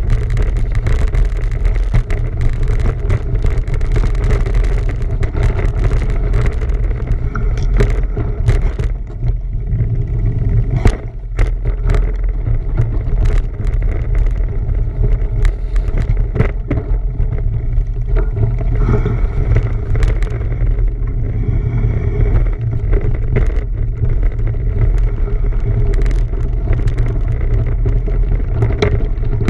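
Wind rumbling loudly on the microphone of a camera riding along on a bicycle, with scattered clicks and knocks from the ride throughout.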